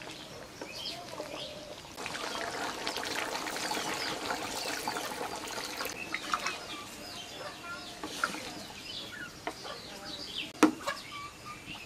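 Mutton and pointed gourd curry boiling hard in a metal pot, a steady bubbling, with birds chirping in the background. A wooden spatula stirring the curry knocks sharply against the pot near the end.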